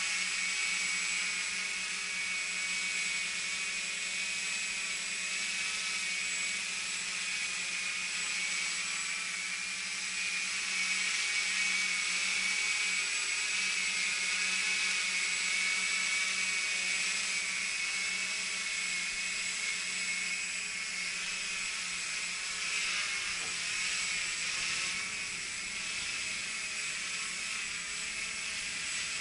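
Walkera QR X350 Pro quadcopter hovering in GPS position hold: the steady whine of its brushless motors and propellers, the pitch wavering slightly as it corrects against the wind.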